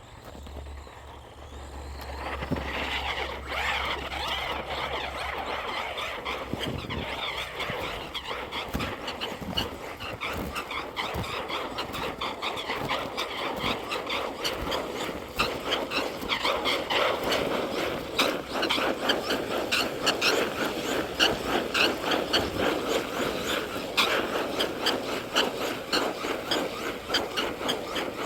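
RC truck driving through snow, its tyres churning the snow with a dense stream of fine crackles; the sound comes up about two seconds in and carries on unbroken.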